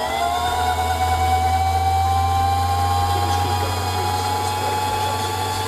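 Singer sewing machine's electric motor running at speed to wind thread onto a class 15 bobbin: a steady high whine with a low hum beneath it. The whine has just risen to full speed and then holds level.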